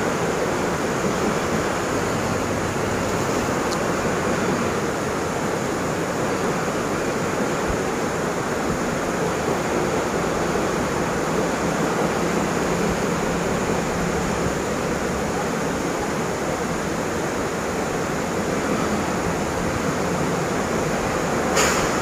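Waterfall rushing: a steady, unchanging rush of falling water.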